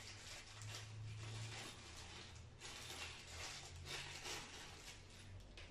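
Small clear plastic bag of screws being handled and rummaged through: faint, irregular crinkling of the plastic, in uneven bursts.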